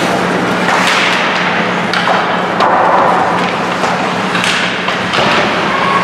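Ice hockey play in an indoor rink: skate blades scraping the ice and sticks and puck clacking, with several sharp knocks and thuds over a steady low hum.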